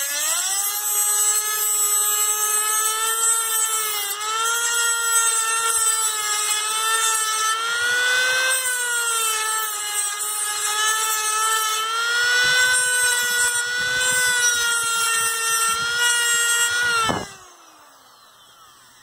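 Dremel rotary tool with an abrasive grinding stone running at high speed, grinding jagged edges of sheet-metal chassis flat. The high motor whine dips and recovers with the pressure on the metal, then the tool is switched off near the end and winds down.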